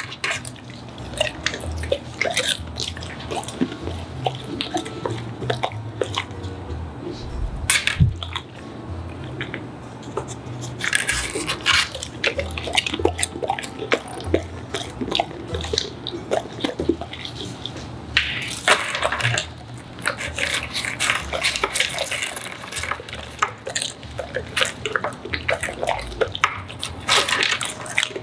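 Large dog chewing food and smacking and licking its lips: irregular wet clicks and smacks that come in flurries.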